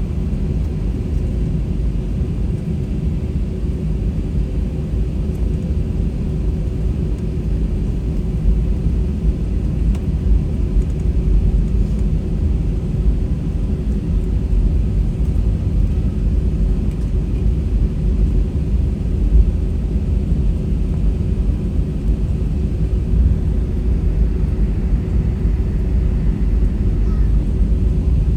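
Cabin noise of an Airbus A320-200 on the ground before takeoff: a steady low rumble from the engines at idle, with a faint steady hum above it.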